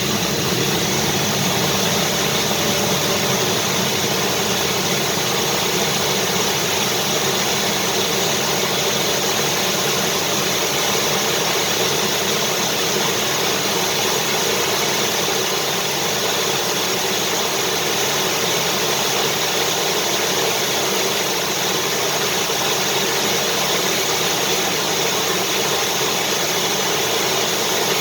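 Vacuum cleaner running at a constant speed, a steady motor drone with airflow hiss that does not change.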